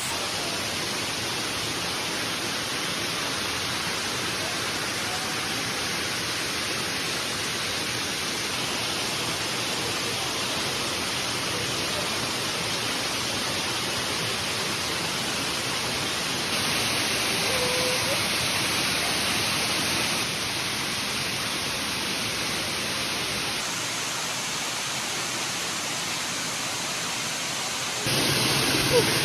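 Marcus Falls, a 28-foot waterfall running full after several days of rain, pouring down as a steady rush of water. The rush steps up a little louder and brighter about two-thirds of the way through and again near the end.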